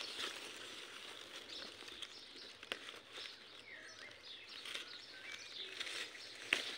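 Strawberry leaves and stems rustling and crackling as a hand picks berries from the plants, with faint bird chirps a little past the middle and one sharp click near the end.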